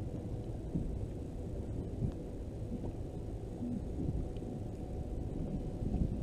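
Steady low rumble of wind on the microphone and water against a small fishing boat's hull, with a few faint knocks.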